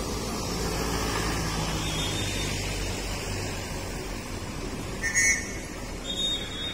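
Steady rumble of city traffic. A short, loud, high-pitched chirp sounds about five seconds in, and a fainter high tone near the end.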